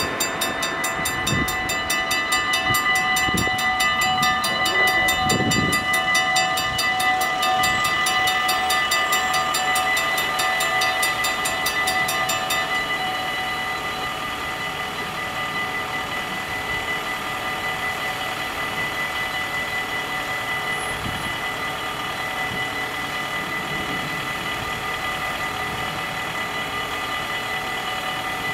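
Dutch level-crossing warning bell, a single mechanical bell, ringing with rapid, even strokes as the crossing closes. About 13 seconds in, once the half-barriers are down, it drops to a softer ring that carries on steadily.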